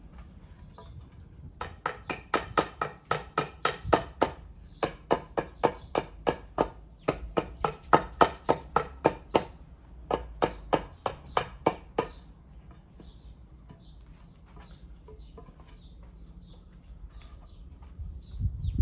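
Rapid tapping strikes of a hand tool on wood, about five or six a second, in four runs with short pauses between.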